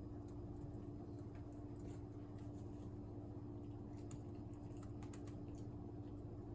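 Typing on the System76 Oryx Pro laptop's keyboard: soft, irregular key clicks over a steady low hum.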